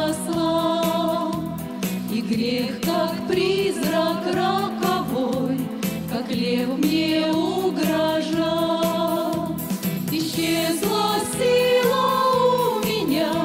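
Female vocal ensemble of six singing a Russian-language Christian song in close harmony, with long held notes, over an accompaniment with a steady low beat.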